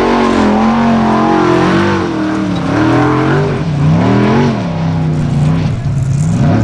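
Formula Offroad buggy's engine revving hard on a steep sand-hill climb, the revs rising and falling again and again as the tyres spin and throw sand.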